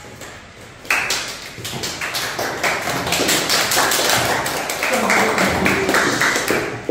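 Applause from a small group: many hand claps start suddenly about a second in and keep on densely.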